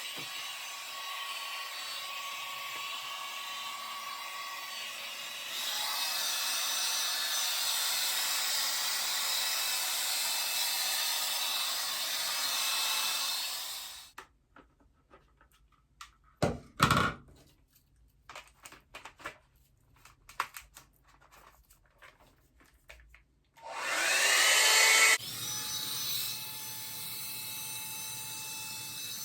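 A hair dryer and hot-air styling brush combo running with a steady rush of air, getting louder about five seconds in. Midway the air stops and there is a quiet stretch with scattered clicks and handling sounds, then a short loud blast, and the dryer runs steadily again near the end.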